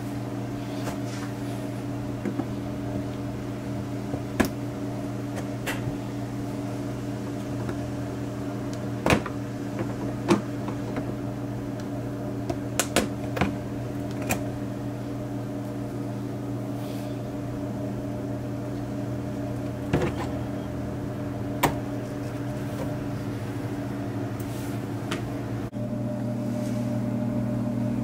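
Plastic trim clips clicking as a screwdriver pries them out of a car's front wheel-well liner and bumper edge: a sharp click every few seconds, sometimes two close together. Under it a steady hum, which shifts and gets a little louder near the end.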